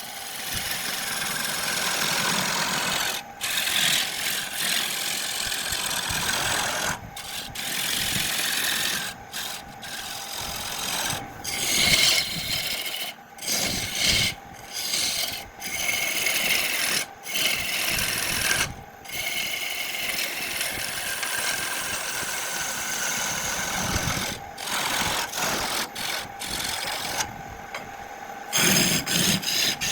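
Spinning wood being worked on a lathe with a tool held against it: a continuous scraping, rasping noise broken by many brief gaps.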